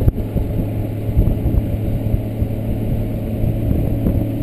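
Honda GL1500 Goldwing's flat-six engine running at a steady cruise, heard with a ragged wind rumble on the microphone while riding. A steady low hum lies under the rumble.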